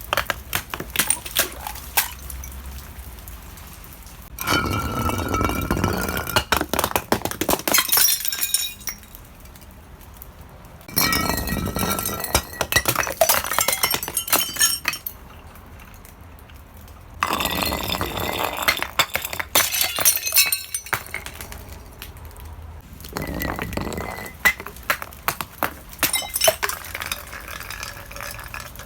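Glass breaking in a series of crashes, about six seconds apart, each followed by a few seconds of tinkling and clinking shards as the pieces fall and settle.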